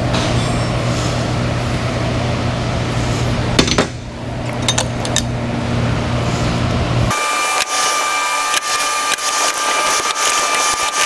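Hand tools clicking and clinking against the metal of a Harley-Davidson Milwaukee 8 V-twin engine as its top end is taken apart. A steady low machine hum underneath cuts off suddenly about seven seconds in.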